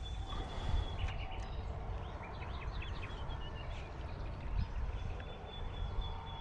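Small birds chirping, a quick run of short calls in the middle, over a steady low outdoor rumble. A thin, steady high tone sounds at the start and again near the end.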